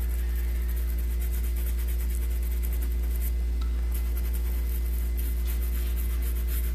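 Steady low hum, with faint, irregular scratchy strokes of a paintbrush rubbing paint through a stencil onto fabric.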